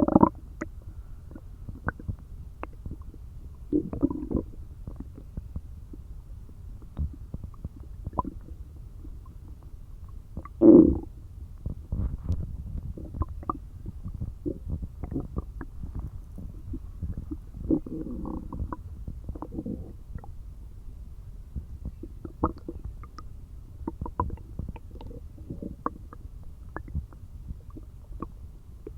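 Empty, hungry stomach growling and gurgling: a continual run of short gurgles and low rumbles, with louder drawn-out growls right at the start, about four seconds in, near eleven seconds and around eighteen seconds.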